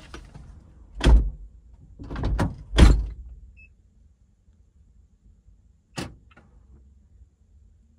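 Car door being shut: knocks and a thump as someone gets in, then a loud slam about three seconds in, after which the outside noise is shut out. A single sharp click follows a few seconds later.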